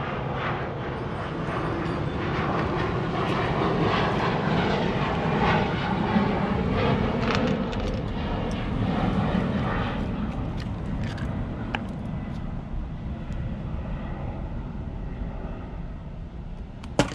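Rumble of a passing engine that builds over the first few seconds and slowly fades, with scattered light clicks on top.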